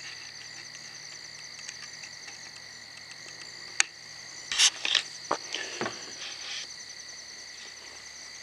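Steady night chorus of insects and frogs, a constant high trilling. A sharp click about four seconds in, then a few short scuffs over the next second or two.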